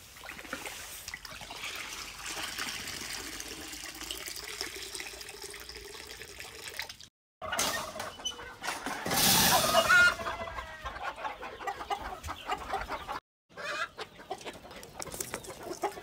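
Domestic chickens clucking and calling, heard across short edited clips broken by two brief cuts to silence. A loud rushing noise rises briefly about nine seconds in.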